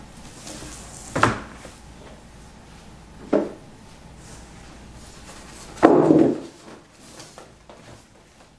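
A large cardboard box being unpacked by hand: rustling of cardboard flaps and packing, with a sharp knock about a second in, another about three seconds in, and a louder, longer knock about six seconds in as the packing inside is lifted out.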